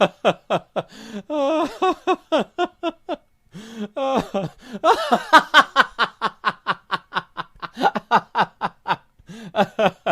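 A run of comic laughter sound effects: snickering and chuckling in quick, rhythmic ha-ha pulses, with a brief pause a little over three seconds in before the laughing starts again.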